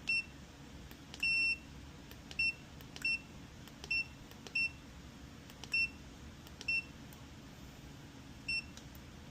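A multimeter's continuity beeper sounding in about nine short, irregular high beeps, one held a little longer about a second in, as the probes touch component leads on a treadmill control board during testing.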